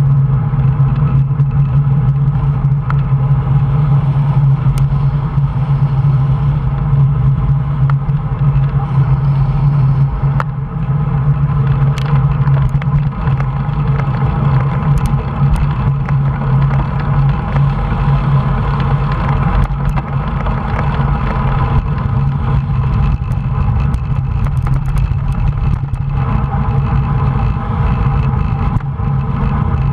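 Steady wind noise buffeting a handlebar-mounted camera's microphone, with tyre rumble on tarmac, as a road bike rolls along at speed. A few faint sharp ticks come through it.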